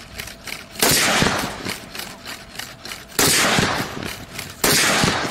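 Gunfire from the rifle mounted on a quadruped robot dog: three short bursts of rapid shots, about a second in, just past three seconds and near the end.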